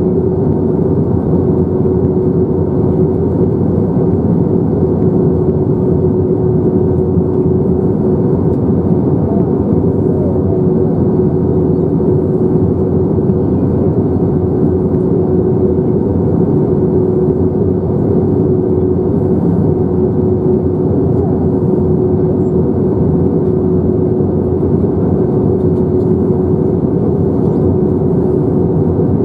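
Steady cabin noise inside an Airbus A321-231 in flight: the rush of airflow and the drone of its IAE V2500 turbofans, with a steady hum that holds one pitch throughout.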